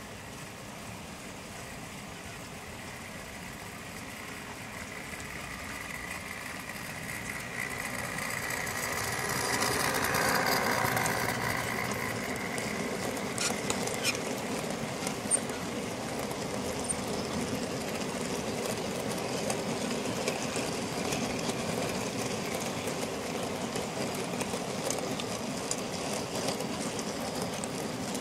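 Diesel locomotive engine sound from a model train, growing louder as the locomotive approaches and loudest about ten seconds in. A long rake of model mineral wagons then rolls past with an even rumble and scattered clicks over the points.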